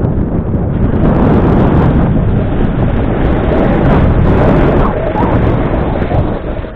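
Loud wind buffeting the camera microphone, a dense rumbling rush, as the skier moves downhill; it eases a little near the end.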